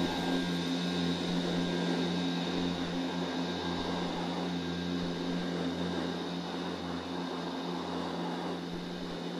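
A steady humming drone with a hiss over it, a looping sound effect for a continuous spray of magic sparks. It eases off slightly over the last few seconds.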